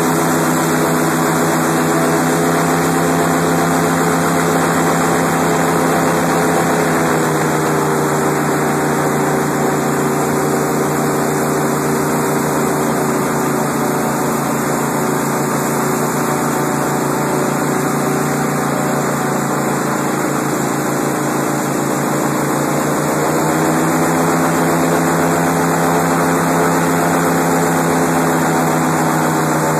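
Airboat's engine and large air propeller running loud and steady. About seven seconds in the pitch drops as the throttle eases off, and about twenty-three seconds in it rises again as the boat speeds back up.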